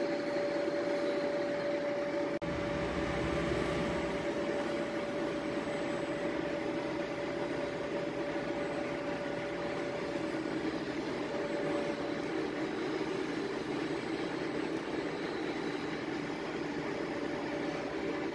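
Yenar YF 60210 roll fluting machine running, its cutting tool fluting a milling roll: a steady machine noise with a constant whine. There is a brief break about two and a half seconds in.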